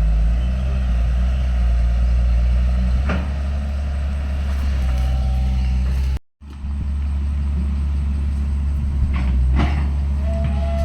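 Heavy earthmoving machine's diesel engine running steadily, with a few sharp knocks about three seconds in and again near the end. The sound cuts out completely for a moment about six seconds in.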